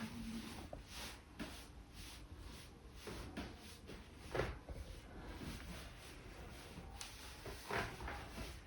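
Hands massaging a person's head: soft, irregular rubbing and rustling strokes over hair and skin, with a sharper stroke about four and a half seconds in and another near the end.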